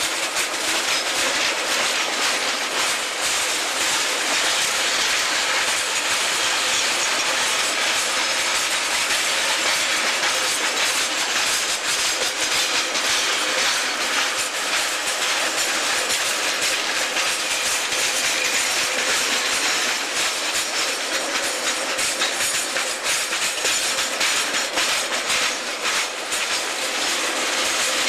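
Freight train boxcars rolling past at close range: a steady, loud noise of steel wheels running on the rails, with a continuous fine clatter of clicks.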